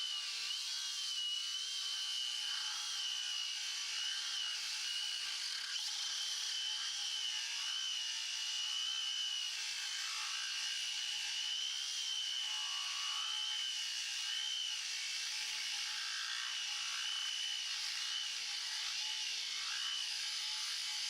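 Cordless 18 V Milwaukee angle grinder cutting through a 20 mm ШХ15 bearing-steel bar with a cut-off disc: a steady high whine that wavers slightly as the disc bites, over a continuous grinding hiss.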